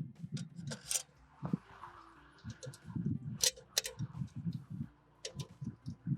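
Hard parts of clamp-on flow meter mounts being handled as the covers are fitted, giving irregular sharp clicks and clinks and dull low knocks, with a few louder snaps.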